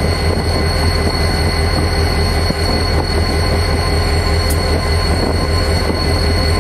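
Union Pacific diesel-electric locomotive running close by: a loud, steady low drone with a thin high whine above it.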